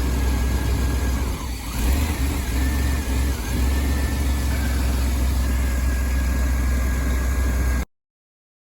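Chevy Astro van being cranked over by its starter without catching, a steady whine over a low churning rumble. It briefly sags and recovers about a second and a half in, then cuts off abruptly near the end.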